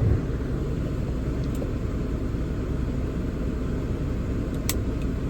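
6.7 L Cummins diesel engine of a Ram 5500 service truck running steadily with a low rumble, with a single light click about four and a half seconds in.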